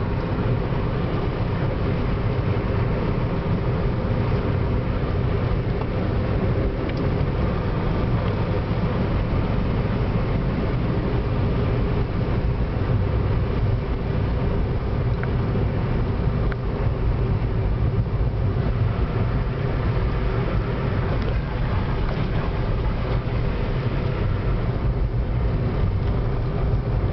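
Steady car interior noise while driving: even engine hum and tyre noise on the asphalt, heard from inside the cabin.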